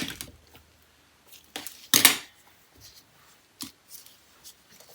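A few sharp clicks and taps of small hard objects being handled, the loudest about two seconds in.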